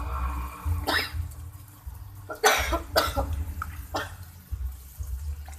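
A person coughing several times, in short separate bursts.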